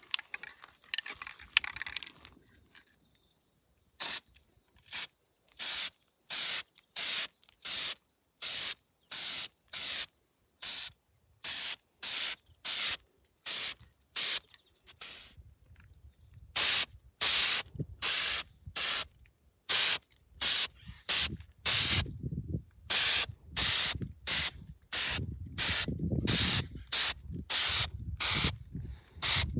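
Aerosol can of Rust-Oleum Hammered spray paint being sprayed onto a rusted trailer hitch in many short hissing bursts, a little more than one a second, beginning about four seconds in.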